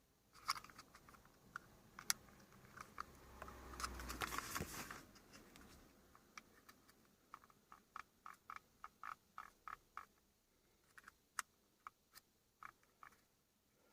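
Faint hand work on plastic car trim: scattered light clicks and a short rustle of parts being handled, then a run of evenly spaced small clicks, about three a second, then a few more clicks.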